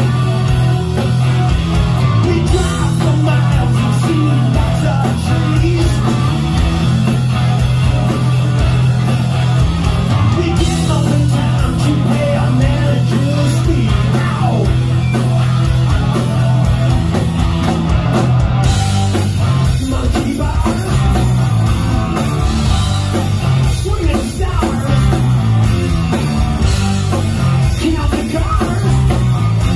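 Hard rock band playing live at full volume: electric guitars, bass guitar and drums, with singing.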